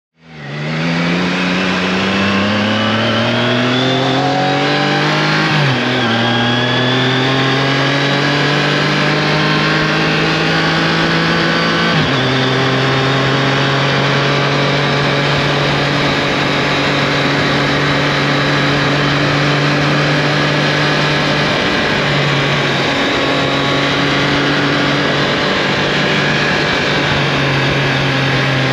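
Triumph Tiger Sport 660's inline three-cylinder engine accelerating through the gears. The pitch climbs, drops at an upshift about six seconds in, climbs again and drops at a second upshift about twelve seconds in, then holds steady at cruising speed.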